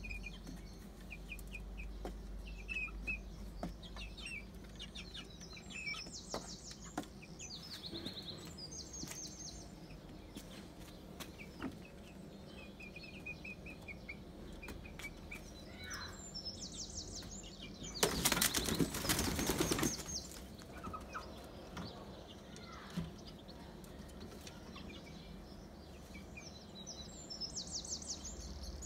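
A chicken flapping its wings for about two seconds, two-thirds of the way through, the loudest sound here. Bird chirps and short trills come and go throughout.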